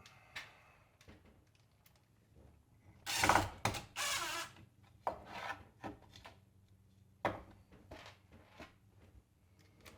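Power drill driving screws into wood: two short runs of the motor about three seconds in, then scattered knocks and clicks of handling.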